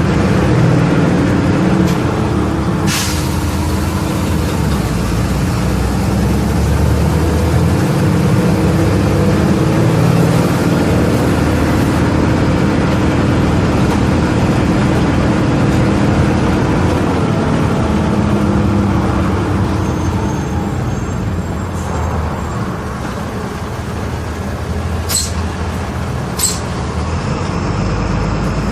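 Volvo B270F bus engine running under way, its note climbing in pitch as the bus accelerates and then falling back as it eases off and settles quieter. A sharp hiss comes early on the stretch and two short ones near the end.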